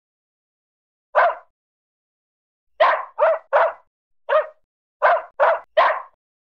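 Poodle barking eight times: one sharp bark about a second in, then a quick run of three, a single bark, and another run of three.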